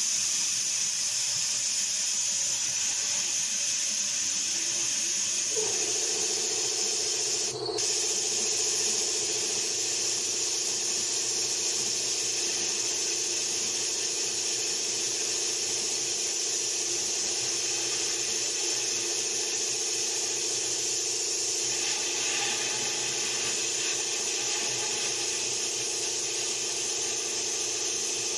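Air blown through the engine's cooling passages, a loud steady hiss as it forces pink coolant to spray out of the open thermostat housing. A steady lower tone joins the hiss about five seconds in, and there is a brief break near eight seconds.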